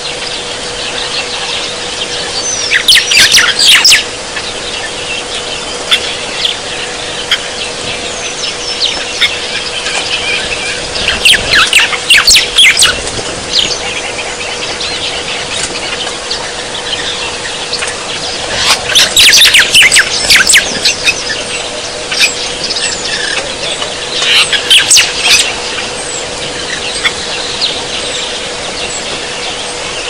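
Bee-eaters calling in four bouts of shrill, chattering chirps, each lasting a second or two, over a steady low hum.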